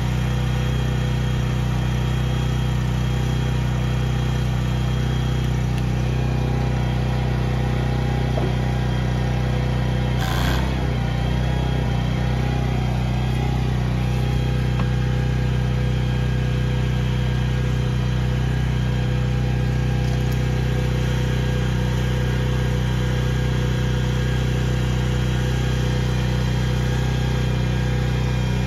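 Hydraulic power unit driving a 100-ton track pin press, running with a steady hum as the press works on an excavator track link pin. A brief burst of noise about ten seconds in.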